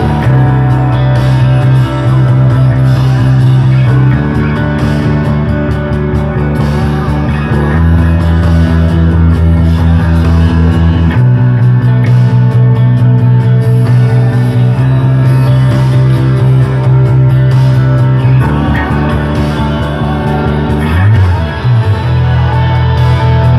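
Electric bass played along to a rock backing track with singing, holding long low notes that change every couple of seconds, with a slide down and back up in pitch near the end.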